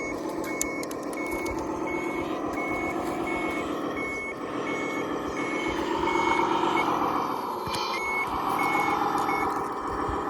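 Reversing alarm of a radio-controlled construction model beeping about twice a second, stopping near the end, over a steady machine drone that grows louder about six seconds in.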